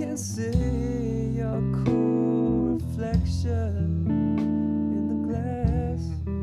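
Background music led by plucked guitar over sustained low notes.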